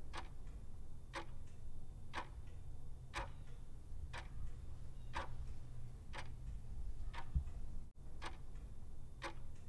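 Clock-ticking countdown timer sound effect, about one tick a second over a low steady hum, marking the time left to answer a quiz question.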